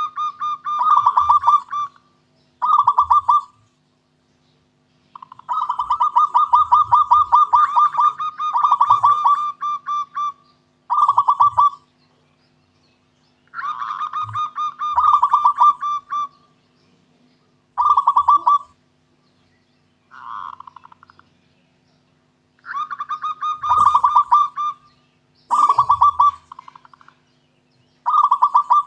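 Zebra dove (local perkutut) cooing: a series of phrases of rapid staccato coo notes, each phrase one to four seconds long with short pauses between, over a faint steady hum.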